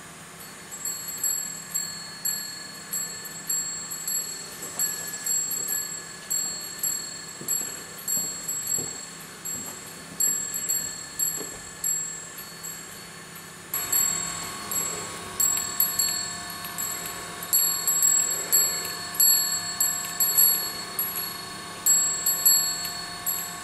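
Franklin bells: small suspended metal clappers, driven back and forth by static charge from a Van de Graaff generator, strike three small metal bells. They ding in an irregular patter of about two to three strikes a second, starting about a second in, and grow louder and more ringing about halfway through.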